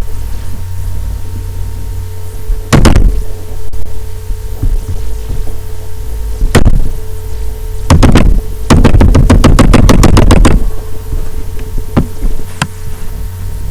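Keyboard keys clicking close to the microphone: a few separate presses, then a fast run of keystrokes lasting about two seconds, over a steady low hum.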